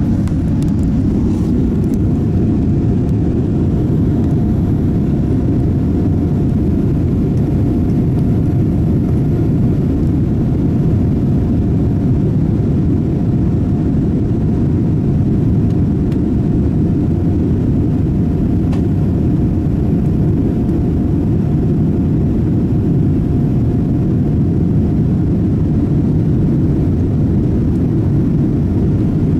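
Steady cabin noise of a Boeing 787 airliner: an even low rumble of engines and airflow with a faint steady hum above it, unchanging throughout.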